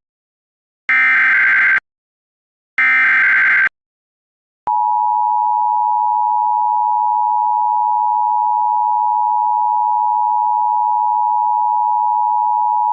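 Emergency Alert System signal: two harsh digital data bursts of the SAME header, each about a second long and a second apart. After a short silence, the steady two-tone EAS attention signal starts a little under five seconds in and holds.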